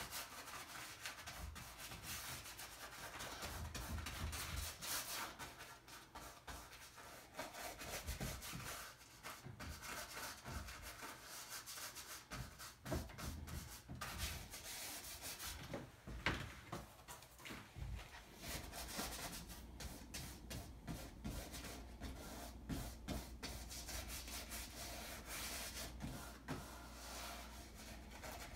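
Paintbrush scrubbing paint onto a stretched canvas in many short, repeated strokes: a faint, soft rubbing.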